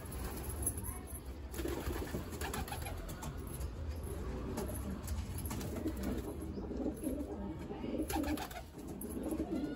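Domestic pigeons cooing over and over in low, warbling coos, the courting coo of a male pigeon in breeding mood. A few brief clicks or clatters come between the coos.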